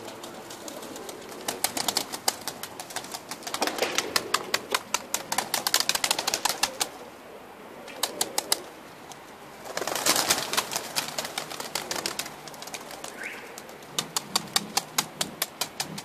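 Domestic pigeons flapping their wings in repeated bursts of fast, evenly spaced wing beats, as birds take off and fly around the flock.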